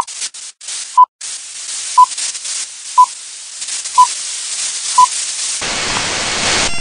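Film-leader countdown sound effect: six short, high beeps one second apart over a crackling hiss like old film. Near the end the beeps stop and a louder burst of static takes over.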